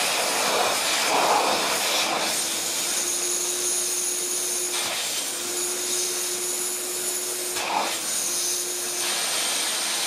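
A 1980 Miele S224 Electronic canister vacuum cleaner running steadily: a rushing airflow with a constant motor hum and a high whine. The sound shifts briefly a few times, around two, five and eight seconds in.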